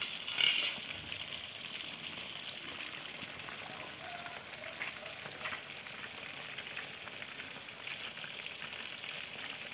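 Flour- and breadcrumb-coated chicken pieces deep-frying in hot oil: a steady sizzle with scattered crackles, and a brief louder burst about half a second in.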